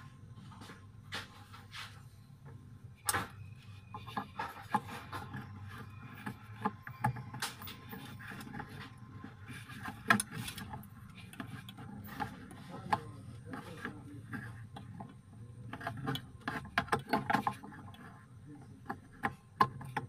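Irregular clicks, taps and rubbing as hands handle a small glass fridge bulb and the refrigerator's plastic light cover, in several clusters, over a low steady hum.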